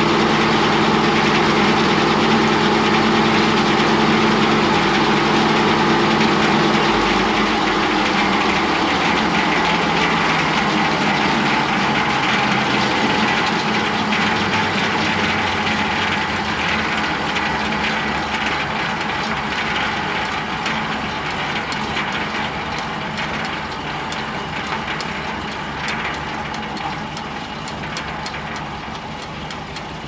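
Old tractor engine running steadily as the power unit for a shop-built circular sawmill, with no log in the cut. Its note drops about seven seconds in, and the sound then slowly grows quieter.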